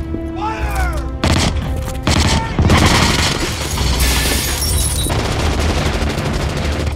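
Movie soundtrack of an M134 minigun firing long, sustained bursts with heavy impacts, starting about a second in, over orchestral score music.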